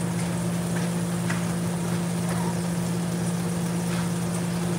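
Steady low hum of a running kitchen appliance, with a few faint knocks in the first two seconds.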